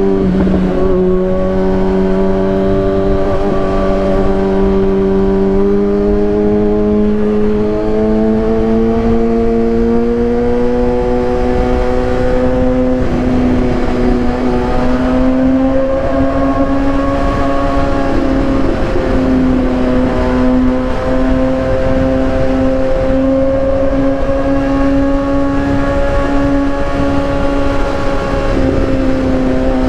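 2015 Kawasaki ZX-6R 636's inline-four engine through a Racefit aftermarket exhaust, running steadily under way at a constant high pitch that rises slowly over the stretch as the revs creep up.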